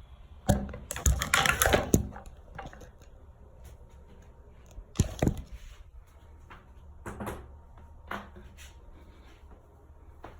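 Joints cracking and popping: a run of sharp cracks, the loudest cluster about a second in, a strong pair of pops around five seconds, then a few fainter pops.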